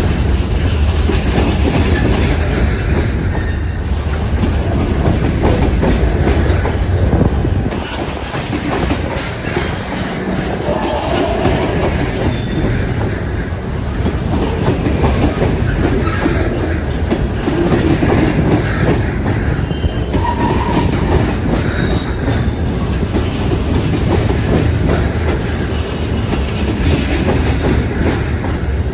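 Freight train of loaded stone cars rolling past on CSX track, wheels clicking over rail joints, with a heavy low rumble that eases after about eight seconds. A few brief wheel squeals come now and then.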